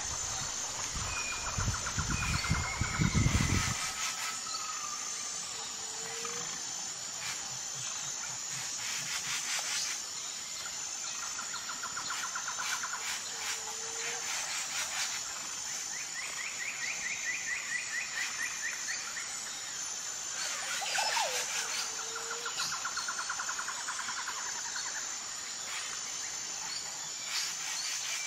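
Outdoor nature ambience: songbirds chirping and trilling over a steady high insect drone, with the same short calls recurring every several seconds. A low rumble runs through the first few seconds.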